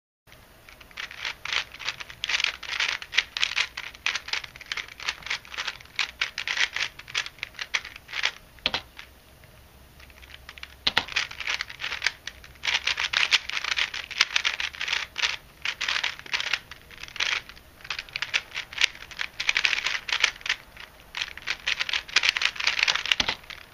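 A modded 3x3 speed cube being turned fast by hand: rapid, dense plastic clicking and clacking as the layers are twisted. There are two long busy stretches with a quieter pause of a few seconds in the middle.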